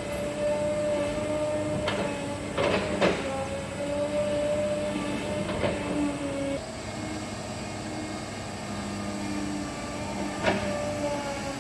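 Caterpillar 320D excavator's diesel engine and hydraulics running with a steady whine. Sharp metal clanks come about two seconds in, a cluster around three seconds, one near six seconds and one near the end.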